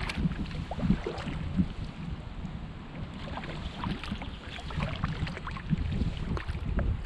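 Kayak paddle strokes: a Braca paddle's blades dipping and splashing on alternate sides, with water dripping and trickling off the blades as the Aquarius Sea Ghost sea kayak glides over calm water. A low rumble of wind on the microphone runs underneath.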